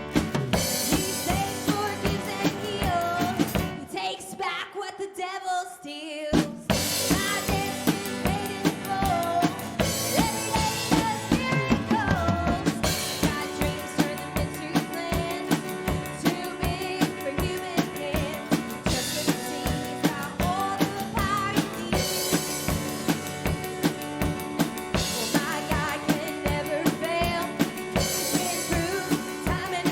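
Live worship band playing an instrumental passage led by a drum kit with kick and snare. The drums and bass drop out briefly about four seconds in, then the full band comes back in about two seconds later.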